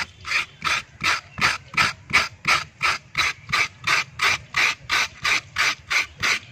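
Papaya being shredded by hand on a grater: a steady run of rasping strokes, about three a second.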